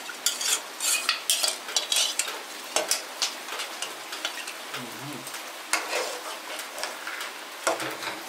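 A utensil stirring and mashing vegetables in a cooking pot for Haitian legume: irregular scraping strokes over a steady sizzle, with a couple of dull knocks.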